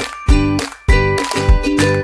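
Background music with a steady beat, just under two beats a second, and pitched notes struck on each beat.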